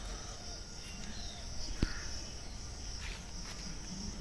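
Steady high-pitched chorus of insects, with a single sharp knock a little under two seconds in.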